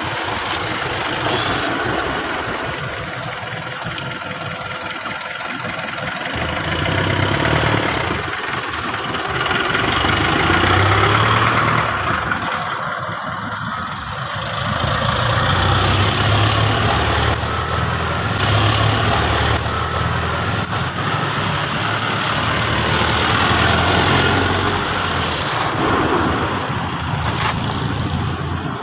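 An engine running, its rumble swelling and fading several times.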